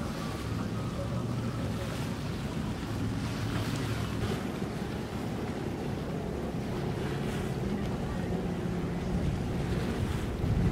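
Outdoor ambience among anchored boats: wind buffeting the microphone and water moving, over a low steady hum like idling boat engines.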